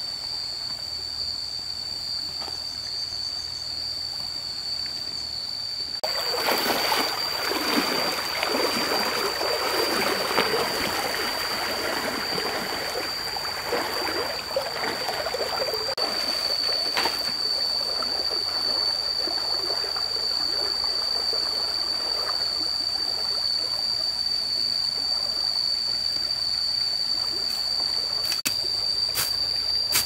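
Water running and splashing, starting suddenly about six seconds in, strongest for about ten seconds, then going on more evenly. A steady high-pitched tone runs underneath, and there are a few sharp clicks near the end.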